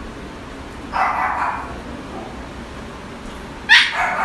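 Husky puppy giving two short barks, one about a second in and a sharper one near the end.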